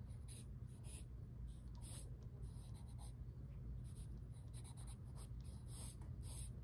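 A wooden pencil sketching on drawing paper: short, quick scratching strokes that come irregularly, one or two a second, over a steady low hum.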